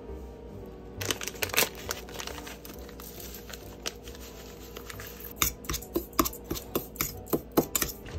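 Paper pouch of dry breading mix crinkling as it is shaken out into a metal bowl, then a quick run of clinks and scrapes from a spoon stirring the mix in the bowl, over the last few seconds.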